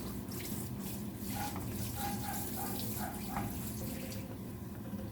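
Soy-based sauce bubbling in a pan, a steady hiss with a few small pops.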